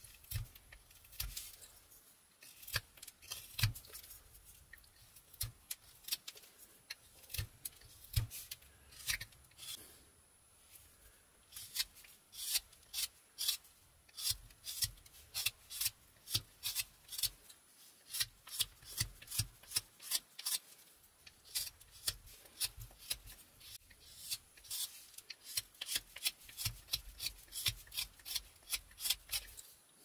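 Mora 122 carving knife slicing shavings off a basswood block: short, sharp cutting strokes, scattered at first, then a steady run of one to two a second.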